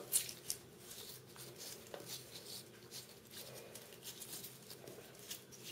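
Toothbrush bristles scrubbing a box turtle's shell in shallow sink water: faint, quick, irregular scratchy strokes.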